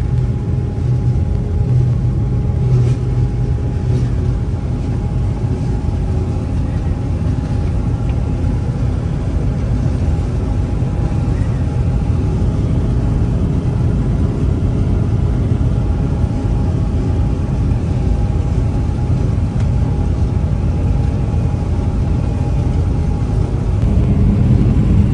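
Combine harvester running steadily, heard from inside its cab: a constant low engine and machinery drone with a faint steady hum over it. Its tone changes slightly near the end.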